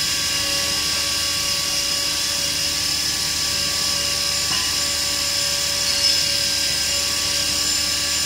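Steady drone of running workshop machinery with several steady whining tones, and a brief clack of metal valve parts being handled about six seconds in.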